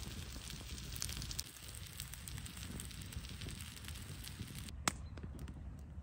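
Wood fire crackling, with scattered small pops and one sharper, louder snap about five seconds in.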